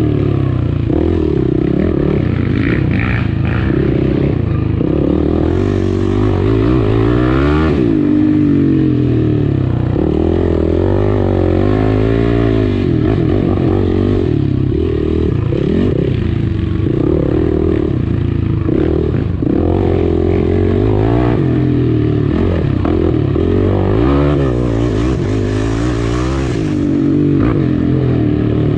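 Yamaha dirt bike engine run hard along a trail, its pitch rising and falling every second or two as the throttle is opened and closed.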